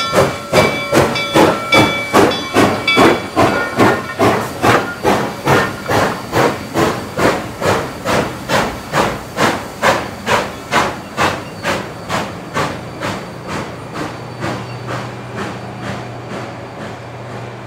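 Reading T-1 class 4-8-4 steam locomotive No. 2102 pulling away with its passenger train, its exhaust chuffing in an even beat of about two and a half a second and fading as it moves off. A steady high tone sounds over the first few seconds, and a low hum comes in near the end.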